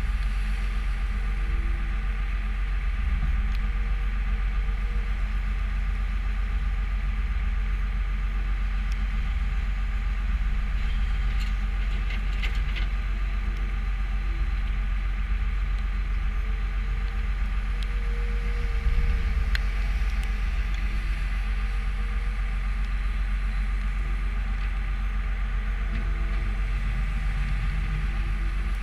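New Holland skid steer's diesel engine running steadily, with a few light clicks and a brief knock about nineteen seconds in.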